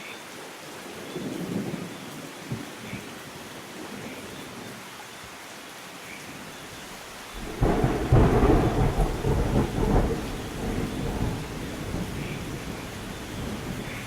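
Steady rain with thunder: a soft low rumble about a second in, then a loud rolling peal starting suddenly about seven and a half seconds in and dying away over several seconds.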